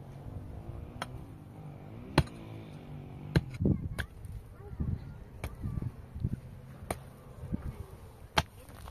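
A series of sharp knocks at irregular intervals, about a second or more apart, with softer thuds between them over a steady low rumble.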